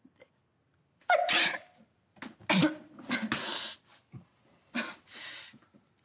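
A young woman sneezing several times in a row: short, sharp bursts, the loudest about a second in.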